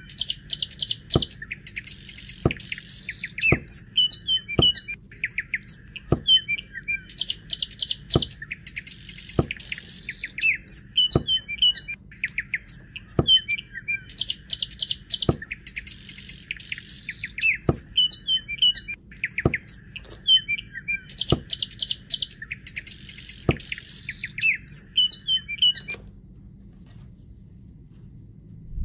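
Birds chirping: the same short run of high chirps and sharp clicks repeats every couple of seconds over a faint steady hum. It stops about three seconds before the end.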